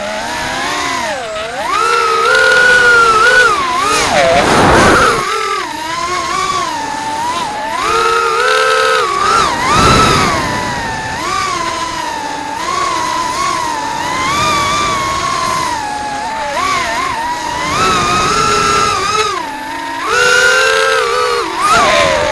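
Shendrones Shrieker FPV racing quadcopter's electric motors whining, the pitch rising and falling constantly with the throttle. There are two closer, louder passes about five and ten seconds in.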